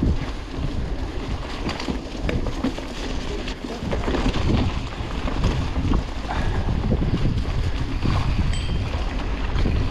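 Wind rushing over the microphone with the low rumble, rattles and knocks of a mountain bike riding over rough singletrack.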